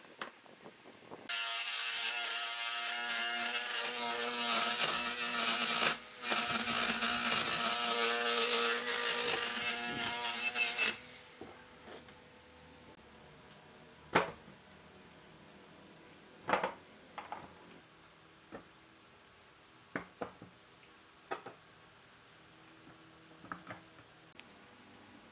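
A power tool's electric motor runs steadily with a strong hiss for about ten seconds, with a brief break near the middle, then stops. After that come a handful of separate knocks and clicks, like wood and tools being handled.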